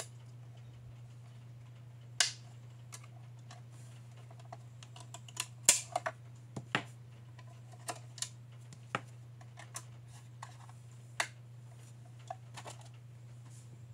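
Small tabletop fountain pump running dry with a faint steady low hum, under scattered light plastic clicks and taps as the fountain is turned over in the hand.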